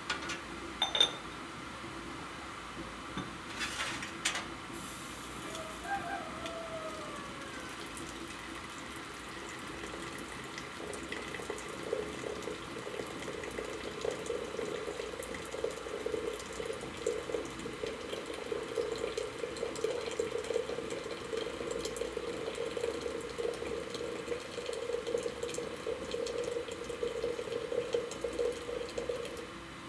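Hot water running from a samovar's tap into a china teapot, a steady pouring sound that starts about eleven seconds in and stops just before the end. A few light clinks of china come before it.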